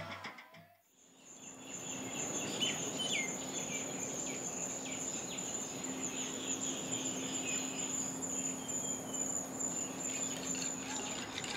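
Outdoor nature ambience: a steady, high-pitched insect trill with birds chirping over it. It starts about a second in, once the drum music has faded out.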